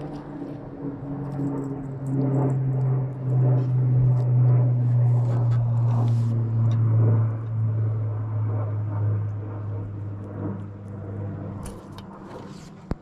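A boat motor running with a steady low hum, its pitch slowly dropping and the sound fading over the last few seconds. A single sharp knock comes just before the end.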